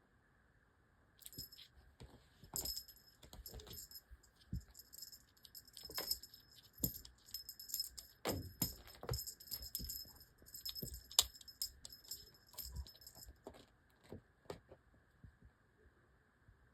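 A small jingle bell on a cat toy, jingling in quick irregular shakes as kittens bat and chase it, with soft knocks between; it starts about a second in and stops near the end.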